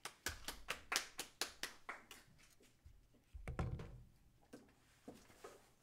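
Brief, thin applause in a small room: about ten claps over two seconds. Then a low thump and rustling as the recording phone is handled.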